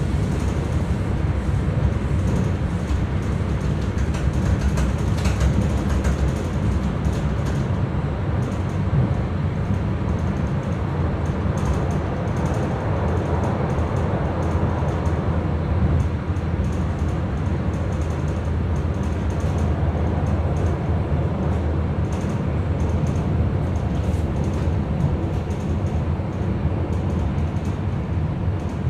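Commuter train running along the line, heard from inside the carriage as a steady low rumble of wheels on rails.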